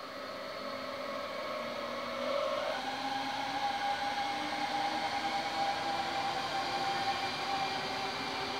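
NS VIRM double-deck electric multiple unit passing close by, its electric traction equipment whining over the rolling noise of the wheels. The whine steps up in pitch and gets louder about three seconds in, and one lower tone rises slowly throughout.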